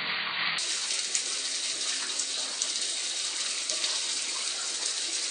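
Red liquid swirling down a whirlpool vortex: a steady rushing, gushing water sound that turns brighter about half a second in.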